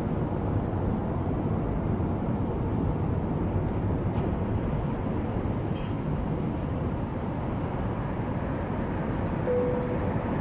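Steady low rumble of jet aircraft noise, with a faint short tone near the end.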